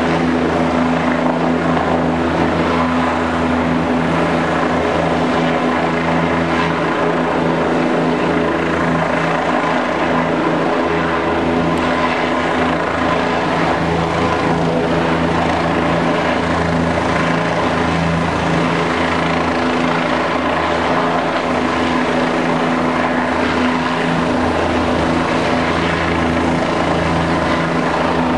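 Helicopter hovering overhead on a long-line sling load, its rotor and turbine running with a steady, loud, unbroken noise.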